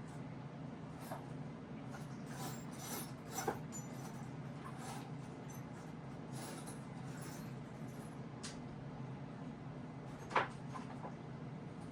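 Scattered light clicks and knocks of small parts being handled, with a sharper click about three and a half seconds in and the loudest one about ten seconds in, over a steady low hum.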